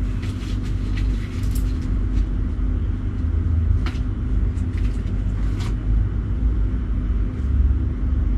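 A steady low rumble and hum fills the room, with a few faint rustles and clicks of clothing being handled as a jacket's pockets are searched.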